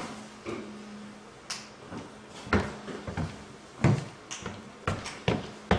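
A series of sharp, irregular knocks and clicks, about nine in all, the heavier ones low and thuddy, over a faint steady hum.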